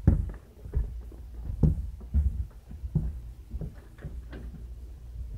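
Handling noise: irregular knocks and rustles against the microphone over a low steady hum.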